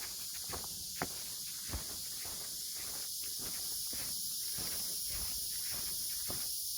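A steady, high-pitched drone from a cicada chorus. Under it are a hiker's footsteps on the trail, a step roughly every half second to second.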